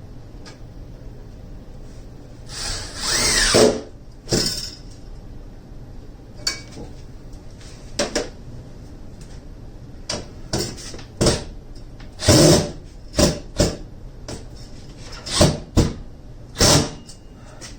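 Cordless drill-driver run in about a dozen short bursts on screws, one longer run about three seconds in, the rest brief pulses of under a second.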